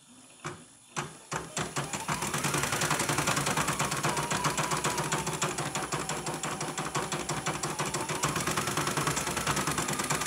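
Portable computerized embroidery machine stitching a design at a fast, even rhythm, with a faint motor whine that drifts up and down in pitch. It starts with a few clicks and gets going about a second and a half in. This is a test run on its repaired power supply.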